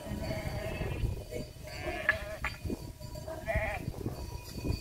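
Sheep in a large flock bleating: three wavering bleats, about a second and a half apart.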